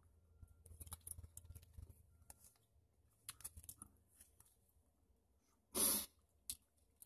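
Gum packaging handled in the hand: light crinkling and small clicks on and off for the first few seconds. A little before six seconds comes one short, loud rush of noise, then a single click.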